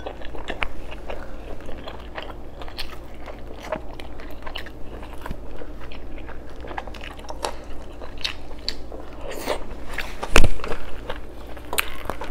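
Close-miked eating: chewing and wet mouth smacks of soft meat and rice eaten by hand, with many small clicks and a louder knock about ten seconds in.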